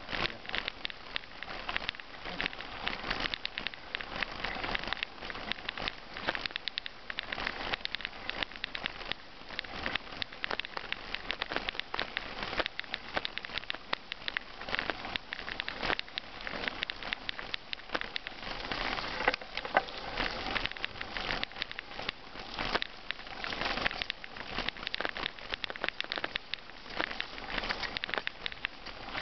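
Bicycle tyres rolling over a loose gravel track: a dense, steady crackle of small stones crunching and popping under the wheels, with sharper clicks and rattles scattered throughout.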